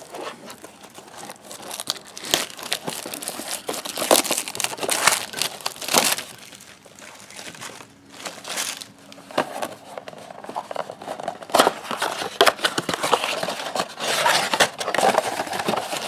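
Cardboard blaster box and the wrapped baseball card packs inside being torn open and handled: irregular crinkling, rustling and tearing of wrapper and cardboard. There is a quieter spell in the middle.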